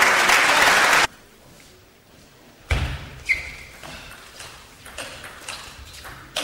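Crowd applause in a large hall that cuts off abruptly about a second in, then a table tennis rally: a heavy thump, followed by the short clicks of the ball striking bats and table about twice a second.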